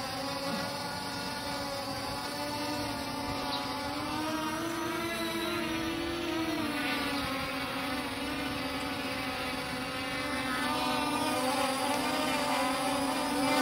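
KF102 quadcopter drone flying, its motors and propellers giving a steady buzzing whine whose pitch rises and falls a little near the middle as it changes height. This is a test flight after repair.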